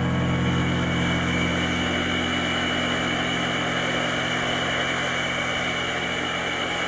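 Sustained electronic drone: a steady low hum of held tones under an even wash of hiss, with no piano notes.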